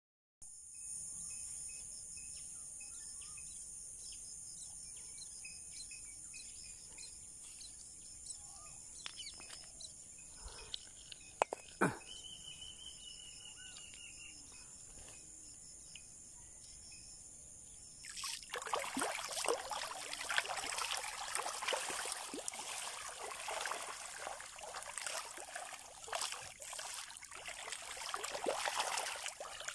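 A steady high insect drone with faint bird chirps over a quiet riverside, broken by a couple of sharp knocks near the middle. About two-thirds of the way in, water splashing and lapping at the shoreline takes over and stays louder.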